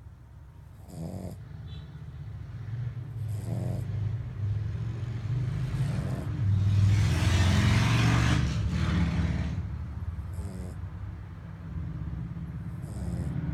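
French bulldog snoring in its sleep, one raspy snore breath about every two and a half seconds, over a steady low hum. A louder rushing noise swells up about six seconds in and fades again a few seconds later.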